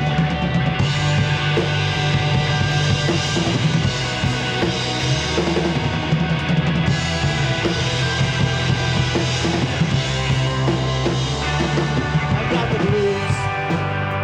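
Indie rock band playing an instrumental passage live: two electric guitars over a bass guitar and a drum kit.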